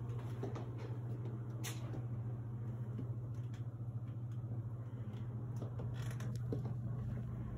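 Steady low mechanical hum, with a few faint taps and clicks over it.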